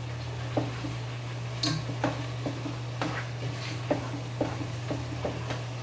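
A cooking utensil stirring simmering steak in a pot, with irregular scrapes and taps against the pot about once or twice a second, over a steady low hum.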